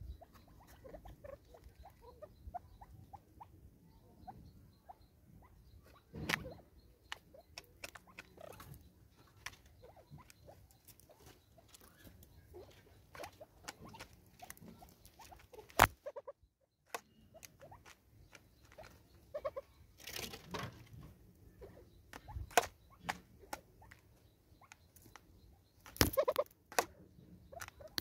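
Spurfowl pecking seed from a plastic bottle feeder on a wooden stump: irregular light taps and clicks, with a few louder knocks scattered through.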